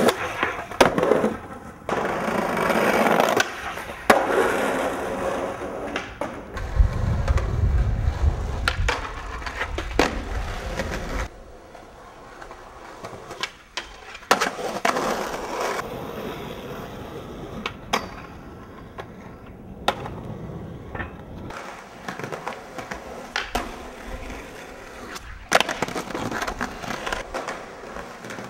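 Skateboard street skating: polyurethane wheels rolling on concrete, with sharp cracks of the tail popping and the board landing, and grinding on a concrete ledge and a metal handrail. A loud low rolling rumble runs for several seconds in the middle.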